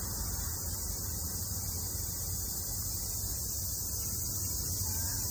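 Steady outdoor ambience: an even high-pitched hiss over a low rumble, with no distinct events.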